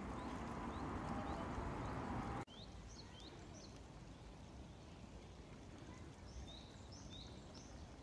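Steady outdoor background noise that breaks off abruptly at a cut, giving way to quieter riverside ambience with small birds chirping in short rising calls, more often towards the end.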